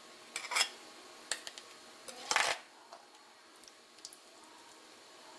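A kitchen utensil clinking and scraping against a plate while sweet corn kernels are tossed in flour: a few short clatters, the longest and loudest about two seconds in, then only faint ticks.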